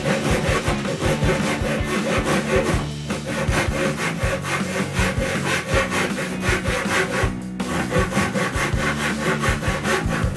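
Japanese handsaw cutting through a scrap of square wooden timber in repeated back-and-forth strokes, with brief pauses about three and seven and a half seconds in.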